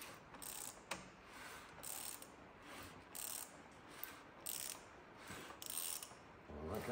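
Ratchet turning a rebuilt Mk8 Ford Transit diesel engine over by hand at the crank pulley, clicking in a steady rhythm of about two to three strokes a second as the crank, timing chain and valvetrain go round. With the injectors out there is no compression, so it turns freely without locking up, a check that the timing is right.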